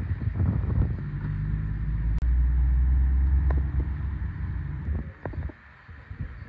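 Steady low engine and road rumble inside a moving car, which stops suddenly about five and a half seconds in.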